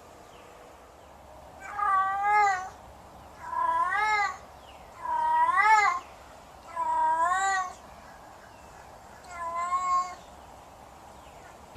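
Domestic cat meowing five times, each meow about a second long, rising and then falling in pitch, spaced about a second and a half apart.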